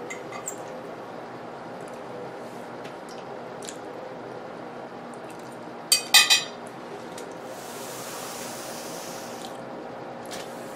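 Metal fork clinking and scraping on a plate, with a quick cluster of sharp ringing clinks about six seconds in, amid faint mouth sounds of chewing. A soft hiss follows for about two seconds.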